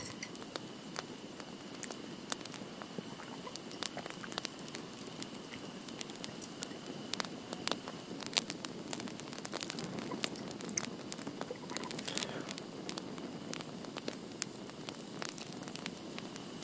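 Campfire crackling, with scattered sharp pops over a steady low rustle.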